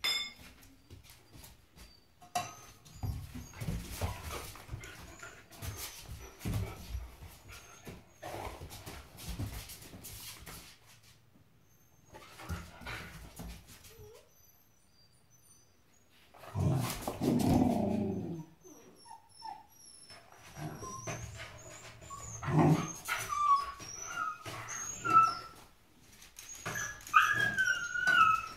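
Dog whining in short high-pitched whimpers that rise and fall, more and more toward the end, over scattered light clicks and knocks. There is one louder rough burst a little past the middle.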